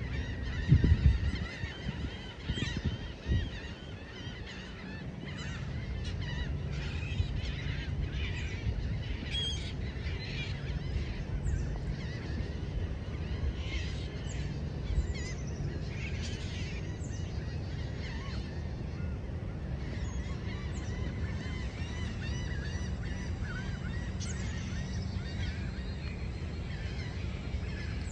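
A flock of birds calling in alarm, many short overlapping calls and honks, which the recordist takes for birds panicking during a solar eclipse. A steady low hum runs underneath, with a few loud thumps in the first few seconds.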